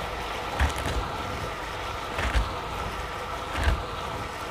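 Small knife cutting handfuls of spinach and fenugreek leaves, four short crisp cuts over a steady background hum.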